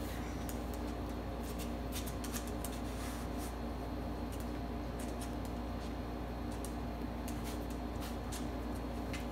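A small dog's claws clicking and scratching on a laminate floor as it scrabbles around, in irregular short clicks, over a steady low hum.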